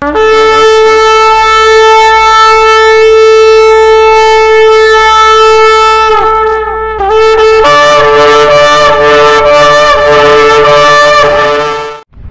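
Trumpet blasts: one long steady held note for about six seconds, then after a short break a second, fuller held blast of several notes together with a slight waver, cutting off just before the end.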